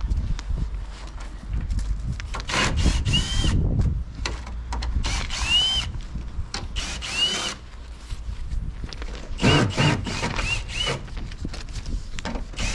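Cordless drill-driver run in several short bursts, each spinning up and winding down, backing the screws out of a wooden shipping crate.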